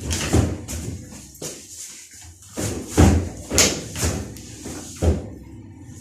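Irregular knocks and thumps of parts being handled during work on a washing machine, several sharp hits spaced unevenly, the loudest about three seconds in.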